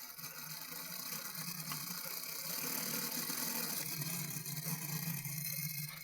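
Gear train of a Herschede clock movement spinning, a steady mechanical whir that grows louder over the first few seconds and eases off near the end.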